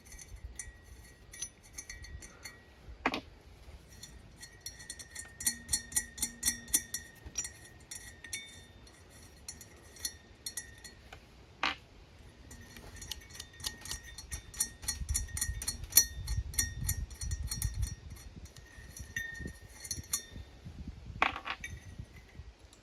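Small metal hardware (lock washers and nuts) clinking in quick runs as it is picked through and handled, with three sharp knocks spread through.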